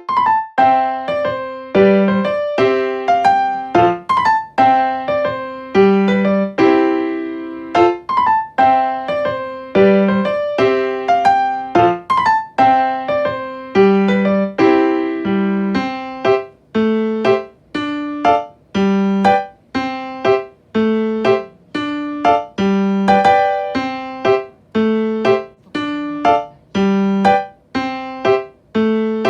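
Background piano music: a light tune of evenly paced notes, each striking and then fading.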